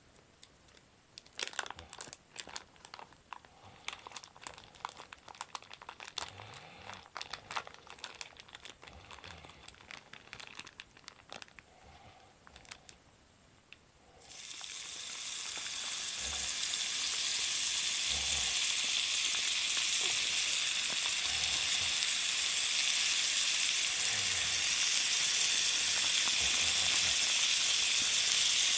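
Plastic food pouch crinkling and clicking as it is handled, then, about halfway through, a sudden sizzle as garlic shrimp and vegetables are tipped into a hot oiled cast-iron skillet; the sizzling grows a little louder, then holds steady.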